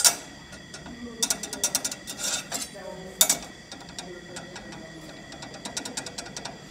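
An Allison 3000 C4 steel reaction plate being pressed around its rim on a flat bench, clicking and knocking against the surface as it rocks. This is a check for cone (dishing) in the clutch plate. There is a sharp knock at the start, then clusters of clicks, then lighter scattered ticks.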